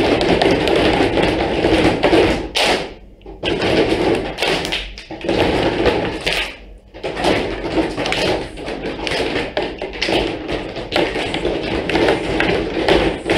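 Many children drumming and slapping their hands on their desks together, a dense loud clatter that breaks off briefly a few times.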